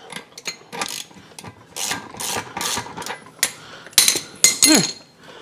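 Socket ratchet clicking in short strokes as the propeller lock nut on an outboard's lower unit is backed off; the nut's nylon insert means it has to be wrenched all the way off rather than spun off by hand. Near the end come a few sharp metallic clanks, louder than the ratcheting.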